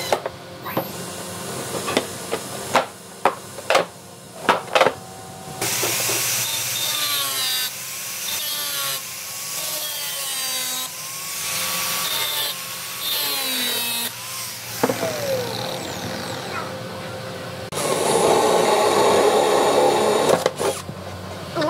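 Short bursts from a cordless impact driver driving screws into a toolbox's hinges. Then an angle grinder cuts off a protruding steel bolt end, its whine dipping and rising under load. Near the end, a Makita cordless drill bores a hole through a wooden board.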